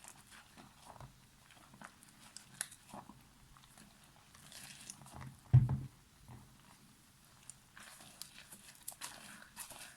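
Soap being lathered by hand: scattered small crunching and crackling with stretches of rubbing hiss, and one heavy thump about halfway through.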